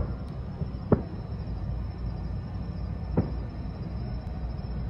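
Distant fireworks bursting: three dull booms, about a second and then two seconds apart, over a steady low rumble.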